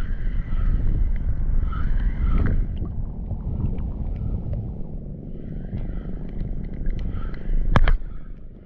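Steady low rumble of wind buffeting the microphone by the sea while a spinning reel is cranked to retrieve the lure. About three-quarters of the way through comes one sharp knock, the loudest sound.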